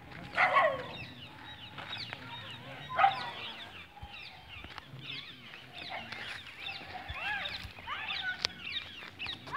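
Birds calling: a busy chatter of short chirps throughout, with two louder calls about half a second in and about three seconds in.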